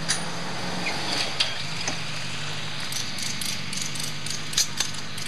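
A steady low engine hum whose pitch shifts slightly, with scattered sharp clicks and taps and a quick run of them starting about three seconds in.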